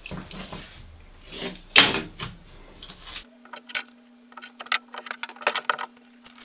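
Double-sided tape being laid on wooden pieces, pressed down and trimmed with a utility knife: irregular handling and rustling with one sharp rustle about two seconds in, then a run of short crackles and clicks over a faint steady hum in the second half.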